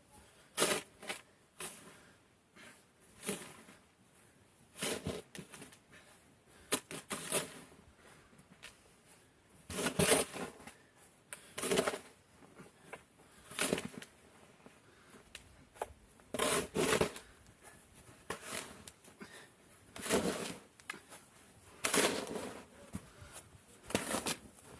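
Crunching, scraping strokes in snow, one every one to two seconds and some in quick pairs.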